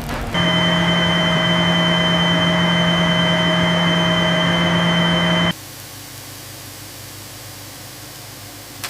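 Loud, steady machine hiss with a low hum and a thin high whine, starting suddenly about half a second in and cutting off abruptly about five and a half seconds in, leaving a much quieter steady hiss.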